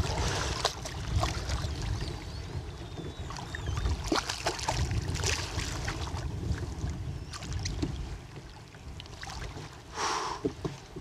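Water splashing around a kayak as a hooked redfish is fought alongside, with short sharp splashes and knocks and a bigger splash about ten seconds in. Wind rumbles on the microphone throughout.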